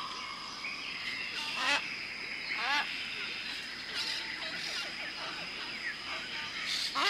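Amazon rainforest chorus: many birds calling over a steady high insect drone. The loudest calls are quick runs of notes sweeping down in pitch, about a second and a half in, again almost a second later, and once more near the end.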